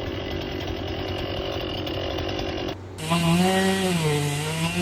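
Stihl MS 261 C two-stroke chainsaw running and cutting through large trunk sections. About three seconds in the sound cuts off abruptly, then comes back with the engine pitch sagging and rising as the saw works through the wood.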